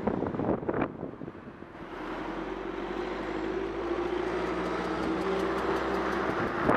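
A van's engine coming up from behind and passing close alongside a bicycle. It is a steady engine note that grows louder from about two seconds in, with rough wind noise on the microphone at the start.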